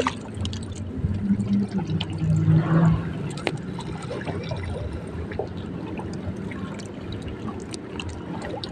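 Water sloshing and trickling, with scattered small clicks and a brief low drone about one to three seconds in.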